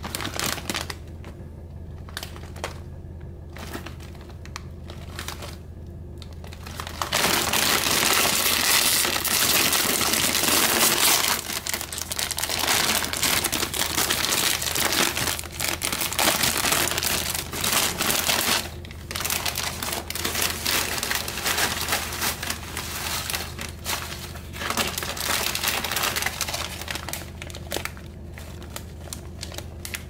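Foil-lined Lay's potato chip bag crinkling as it is handled and pulled open. There are light scattered crinkles at first, then loud dense crinkling from about seven seconds in that carries on in bouts until near the end.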